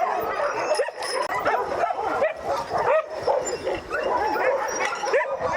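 A pack of Alaskan husky sled dogs yipping, whining and howling together in a loud, continuous chorus of overlapping calls.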